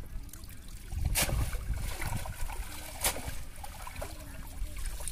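Water splashing and sloshing as a cast net is gathered up by hand in shallow, muddy water, with louder splashes about a second in and again about three seconds in.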